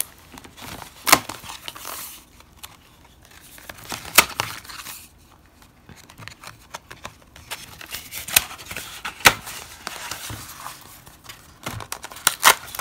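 Corrugated cardstock sheets being turned over and handled, a papery rustle broken by several sharp snaps as the stiff sheets flip and drop.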